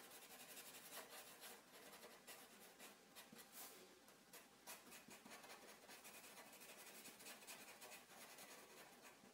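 Faint scratching of a black Sharpie marker tip on paper, in many short, quick strokes as small areas are filled in.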